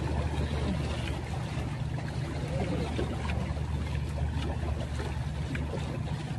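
Steady low drone of a boat engine, with light splashing from a rabbitfish being played at the surface on a fixed-line pole.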